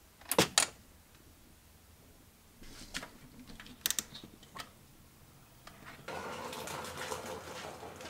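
Sharp plastic clicks and knocks from handling a Ryobi One+ cordless fan, including a hand turning the knob on its top about four seconds in. From about six seconds a steady whirring hiss sets in.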